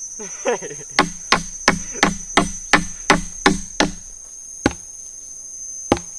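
Quick, evenly spaced chopping strikes on wood, about three a second for some three seconds, then two single blows. A steady high drone of forest insects runs underneath.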